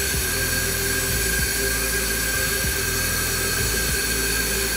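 Steady high-pitched whine of compressed air filling a large rubber balloon through a pipe fitting, under background music with a low bass line.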